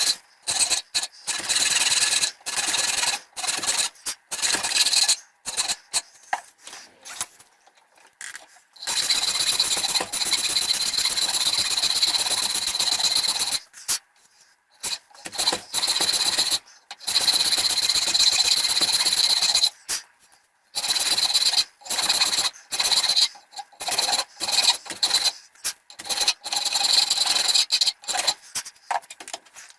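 Oak handle scales being shaped with an abrasive tool. Short, irregular rasping strokes come first, then longer stretches of continuous rasping lasting several seconds each, with pauses between them.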